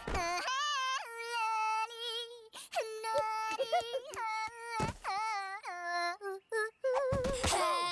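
Wordless, high-pitched cartoon-style singing: a melody of short held notes that waver up and down, sung as a serenade. It is broken by a few brief noisy thumps and rustles, the clearest just after the start and about seven seconds in.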